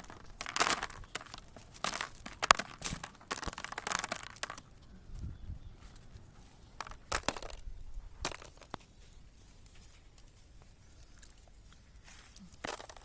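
Dry peanut plants and shells rustling and crackling in irregular bursts, busiest in the first few seconds and sparser after.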